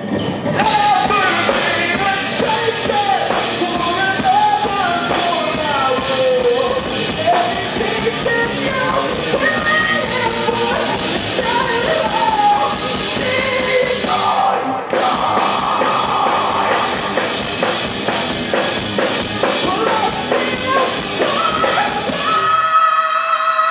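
Rock band playing live: a singer over loud drums and distorted guitars, turning into a dense, driving passage midway. The drums and bass drop out near the end.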